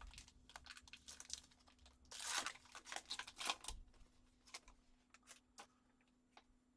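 Trading-card pack wrapper being torn open and crinkled, in short tearing bursts with light rustling and clicks of cards being handled. The loudest tear comes about two seconds in, and another follows about a second later.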